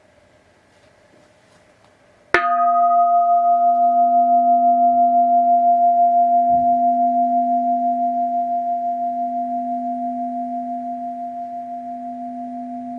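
A 19th-century Japanese brass orin, a Buddhist bowl bell, is struck once about two seconds in. It then rings with a long tone made of two steady pitches, a lower and a higher, that pulse gently and slowly fade.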